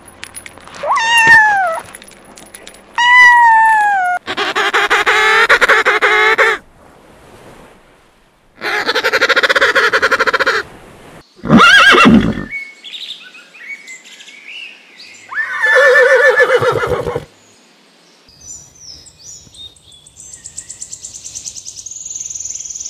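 A kitten meows twice, each a short call falling in pitch. A horse then whinnies four times, loud and wavering, the third call short. Faint high chirps come in near the end.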